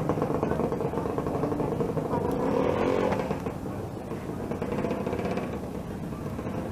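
Street traffic: a motor vehicle engine running with a steady hum, a little louder in the first three seconds.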